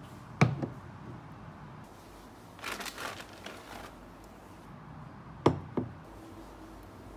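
Glassware being set down on a wooden tabletop: two double knocks about five seconds apart, with a short crinkle of plastic wrapping in between.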